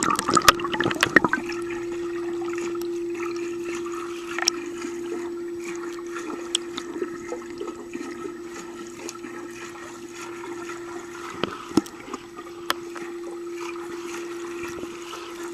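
A dog swimming in a pool: splashing in the first second or so, then steady water lapping and trickling with scattered small splashes, over a steady hum.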